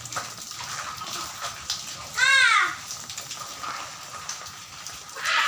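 Rain falling in a steady hiss. About two seconds in comes one short, high-pitched call that rises and then falls.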